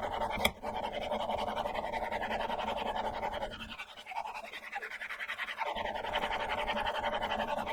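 A chisel in a honing guide worked back and forth on the 1000-grit side of a diamond sharpening stone, a steady gritty scraping of steel on diamond, the chisel's bevel being polished after regrinding on the 300-grit side. A sharp click comes about half a second in, and the scraping stops for about two seconds in the middle before starting again.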